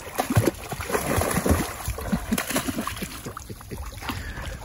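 Dogs, one a German Shepherd, splashing and paddling in shallow pond water, with irregular sloshes and splashes.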